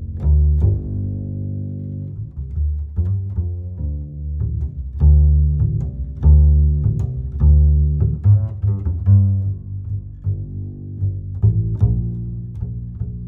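Music led by low, heavy bass notes with bowed and plucked string sounds, punctuated by sharp clicking strokes.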